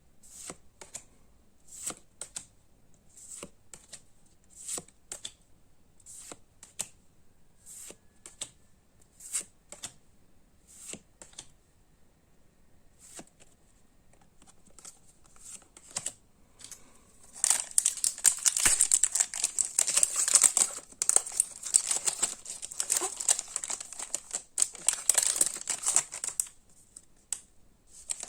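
Trading cards flipped one at a time, a short crisp flick a bit more than once a second. About seventeen seconds in, a foil Pokémon booster pack is torn open and crinkled for about eight seconds, the loudest part.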